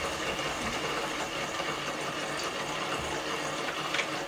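Spiral flowing-somen (nagashi somen) slide machine running: its small pump keeps water circulating down the plastic chute into the basin, a steady running-water hum. A light click near the end.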